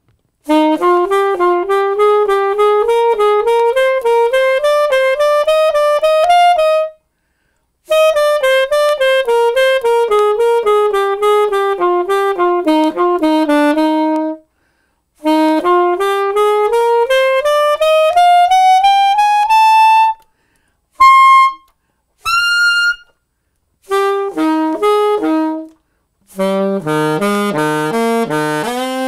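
Yanagisawa alto saxophone played unmuted and loud, without its practice mute, for a loudness test. It plays long stepwise scale runs, rising, then falling, then rising again, in phrases broken by short breaths, then two short high notes and a quicker passage that drops to low notes near the end.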